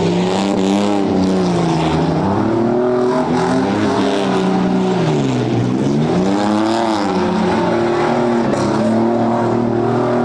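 A tuff truck's engine revving hard, its pitch climbing and dropping about three times as the throttle is worked, then holding high and steady near the end.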